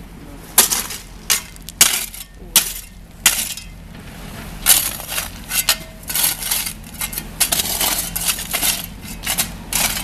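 Steel shovels scraping and scooping crushed stone on a path bed: a series of short gritty scrapes in the first few seconds, then longer scraping and crunching runs about halfway through and again near the end.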